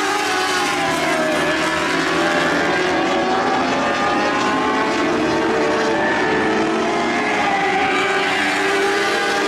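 A pack of lightning sprint cars racing, several high-revving engines overlapping, their pitch rising and falling.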